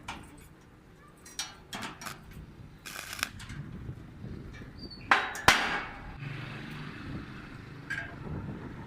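Knocks and clanks of steel pieces being handled and struck in a welding shop, with two loud metallic strikes about five seconds in that ring briefly.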